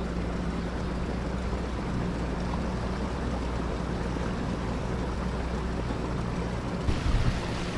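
Boat's outboard motor running at a steady speed, a low even hum under a hiss of water and wind. A few louder low knocks about seven seconds in.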